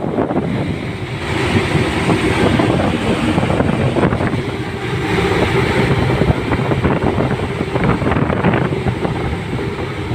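Wind buffeting the microphone aboard a ship at sea, over a steady low rumble from the ship.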